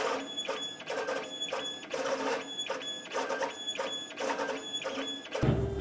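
Stepper-motor drive of a CNC plasma table moving the torch gantry on a dry run, with the torch not firing, as it traces the cut path. It goes in short stop-start moves, about three a second, each with a high whine.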